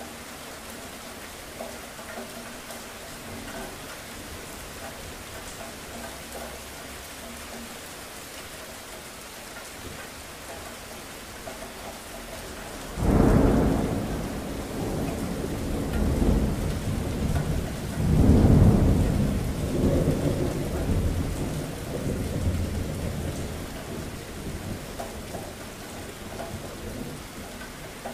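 Steady rain with thunder: about halfway through, a sudden loud thunderclap breaks in, followed by rolling rumbles with a second loud peak a few seconds later, dying away over the last several seconds.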